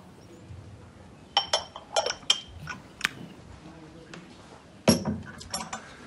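A ceramic teacup clinking lightly several times as it is handled, with a few sharp clicks about a second and a half in and another cluster near the end.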